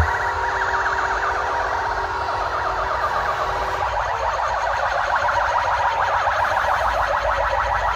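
Several rapidly warbling, siren-like electronic tones sounding at once through a DJ sound system, with the heavy bass beat dropped out.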